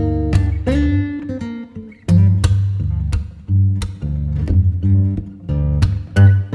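Background music of plucked acoustic guitar over a steady bass line.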